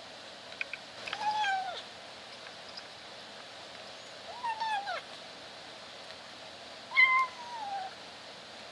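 Kitten meowing three times while eating, each short call falling in pitch: odd, strangled-sounding meows made with food in her mouth.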